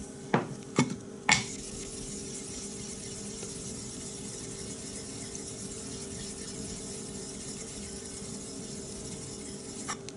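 Soft Tenjo nagura stone being scrubbed in circles over the wet face of a Chosera 3000 waterstone, a steady gritty rubbing as it raises slurry. Three sharp knocks in the first second and a half.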